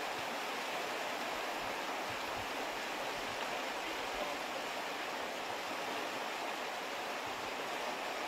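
Steady rushing of floodwater pouring over and past a concrete causeway.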